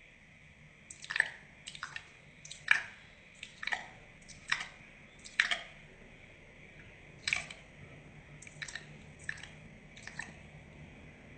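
A series of a dozen or so short, sharp wet clicks at uneven intervals, about half a second to a second apart, each dropping quickly in pitch.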